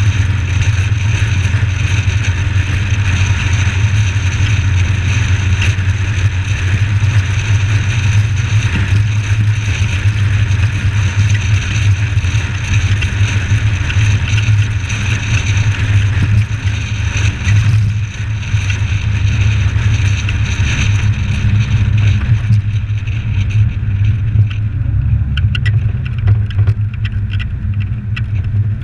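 Suzuki Samurai's engine running steadily while driving, a deep, even drone with a hiss of wind and road noise over it. About 23 seconds in, the high hiss drops away and the engine drone carries on.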